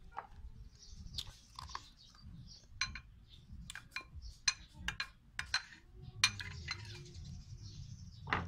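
A metal spoon and ladle clinking and scraping against bowls and a colander: irregular sharp clinks, a dozen or more, some with a brief metallic ring.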